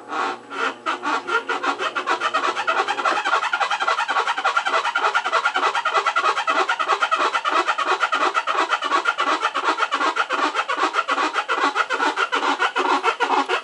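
Maytag MVWC400XW2 top-load washing machine creaking and squeaking as its tub turns. The squeak repeats with each turn and speeds up over the first few seconds to about five squeaks a second, then holds steady.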